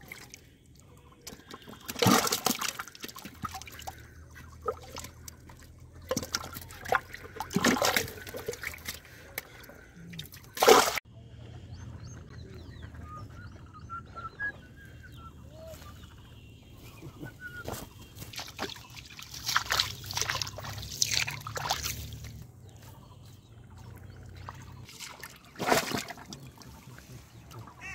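Muddy water splashing and trickling in several short bursts, from fish thrashing in the trap's flooded pit and bare feet wading through wet mud.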